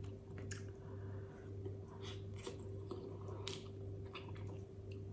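Close-up chewing of seafood-boil food, with small wet mouth clicks and light crunches scattered through, over a steady low hum.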